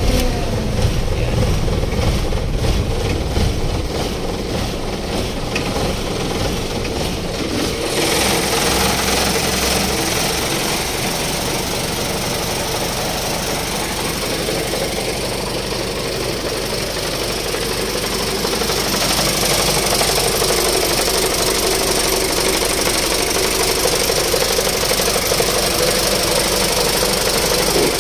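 Isuzu 6BG1 inline-six diesel engine running steadily just after being started, with a diesel knock. The sound becomes brighter about eight seconds in.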